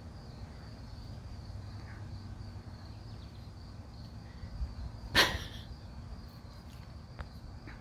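A dog barks once, short and sharp, about five seconds in, over a steady high drone of crickets.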